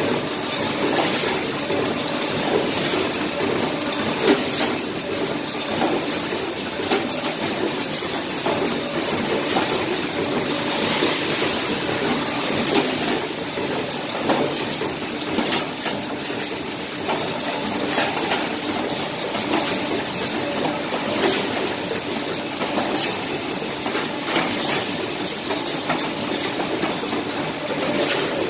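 A row of automatic paper plate forming machines running in production, with the plate conveyor: a steady mechanical din with a constant hiss and frequent irregular clicks and knocks.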